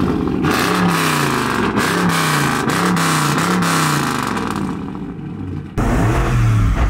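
Dodge Charger's engine revved over and over in quick blips, about one a second, the pitch rising and falling each time. After a sudden change near the end, a car engine runs at a lower, steadier note with small revs.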